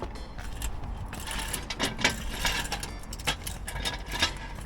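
Irregular metallic clicks and knocks from a jack and axle stands being worked under a raised car.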